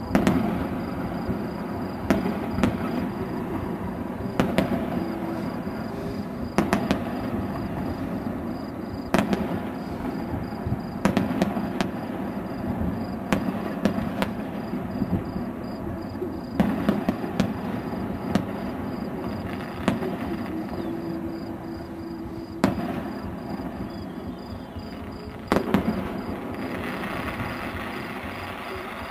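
Fireworks display: aerial shells bursting in sharp bangs every one to three seconds over a steady background noise.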